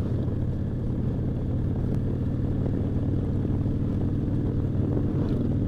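Motorcycle engine running steadily at a constant cruising speed.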